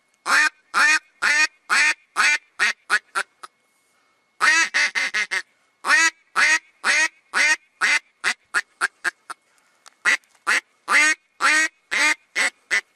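Mouth-blown duck call for luring drakes, sounding runs of quacks. Each run starts with longer notes and speeds up into short, quick ones. There are three runs, with short pauses about four and nine and a half seconds in.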